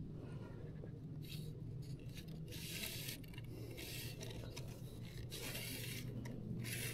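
Sections of a telescopic float rod being slid out, giving several short rasping scrapes one after another.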